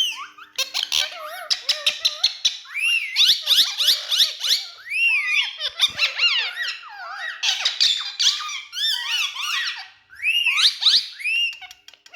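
Indian ringneck parrot calling: a rapid run of high whistled calls, each rising and falling in pitch, with brief pauses.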